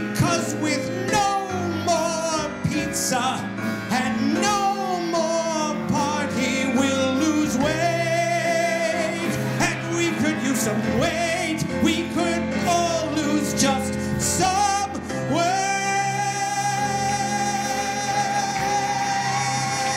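A male cabaret singer with a live band, piano and drums among it, singing the big finish of a song, ending on one long held note about three-quarters of the way through.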